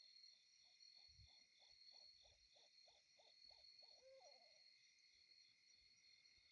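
A distant animal call, faint: a fast, even series of about a dozen short low notes, roughly three a second, stopping about four and a half seconds in, over steady insect chirring.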